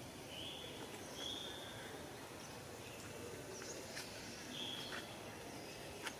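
A few short, high-pitched animal calls, each about half a second long, with some higher chirps in between, over a steady outdoor background noise.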